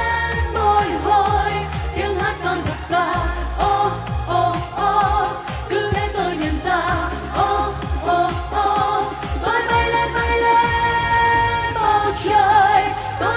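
Female singers of a girl group singing a Vietnamese pop song into handheld microphones over pop backing music with a steady beat.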